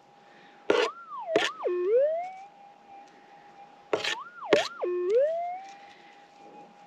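Minelab GPX 6000 metal detector holding its steady threshold tone, twice broken by a wavering rise-and-fall target signal as a plastic scoop of dirt is passed over the coil, meaning there is metal in the scoop. Each signal is preceded by a couple of sharp clicks from the scoop being handled.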